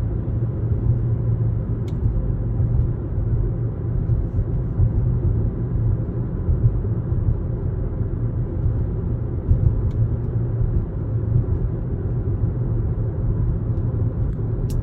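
Steady road and drivetrain rumble inside the cabin of a moving 2021 Toyota RAV4 Hybrid, with a few faint sharp clicks about two seconds in, about ten seconds in and near the end.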